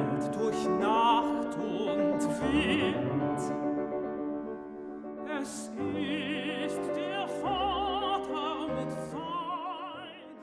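Operatic singing with strong vibrato over classical accompaniment, held notes with a break about five seconds in, fading out near the end.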